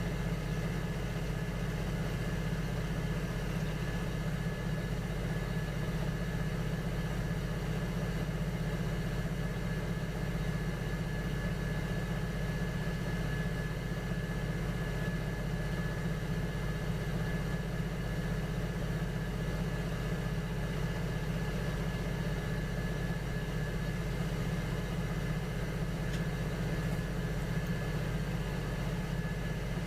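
Electric potter's wheel running steadily, its motor giving a constant low hum with a faint high whine above it.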